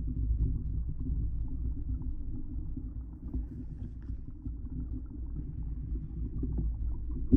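Muffled underwater rumble of water moving around a submerged GoPro in its waterproof housing, steady and low, with a few faint ticks.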